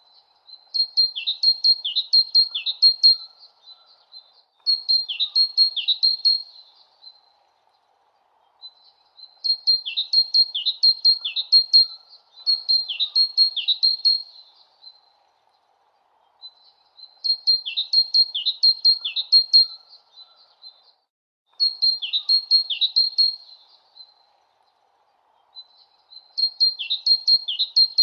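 A bird tweeting in repeated phrases of quick high chirps with short downward slurs. Each phrase lasts two to three seconds, with pauses of about a second between, and the same phrases come back again and again.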